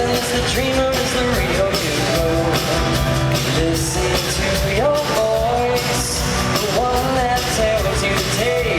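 Live pop-rock band music with a lead vocal over a steady drum beat and guitar, heard from within the audience.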